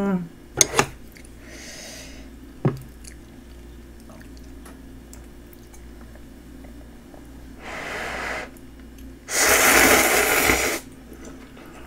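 Instant ramen noodles being slurped: a short slurp about eight seconds in, then a long, loud slurp lasting about a second and a half. A few light clicks in the first three seconds.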